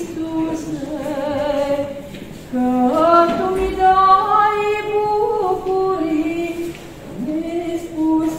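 A woman's voice singing a Romanian Orthodox pricesnă (devotional hymn) in slow phrases of long held notes, with short breaks about two and a half seconds in and near seven seconds.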